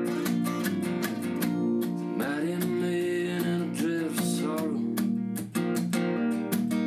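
Acoustic guitar strummed in quick, even strokes through a folk song, with a bending melody line over it in the middle.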